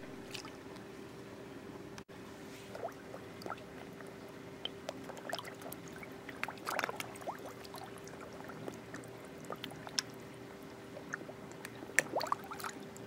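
Water in a garden koi pond: scattered small plops, drips and bubbling sounds, each a brief rising blip, over a steady faint hum. The busiest and loudest cluster comes about a second before the end.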